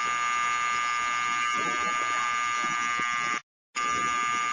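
Fire alarm horn sounding one continuous, steady buzzing tone. It breaks off abruptly for a moment about three and a half seconds in, then comes back unchanged.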